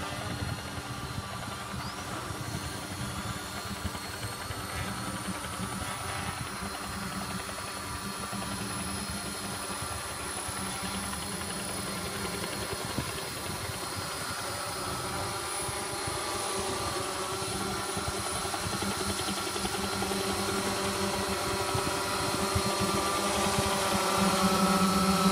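An RC quadcopter fitted with a sound-effect module, running with a steady engine-like drone. A high whine rises over the first few seconds, and the sound grows louder near the end.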